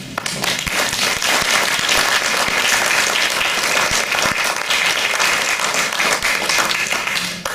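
Audience applauding: dense, even clapping from many hands that stops abruptly near the end.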